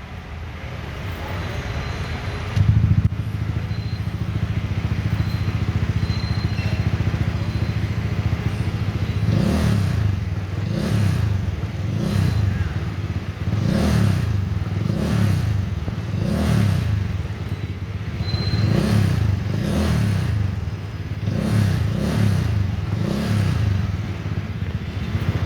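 Honda PCX 160 scooter's single-cylinder engine running through an Akrapovic full-system exhaust. It idles with one short loud blip about three seconds in, then from about nine seconds is revved in a long series of quick throttle blips, each rising and falling, a little over a second apart.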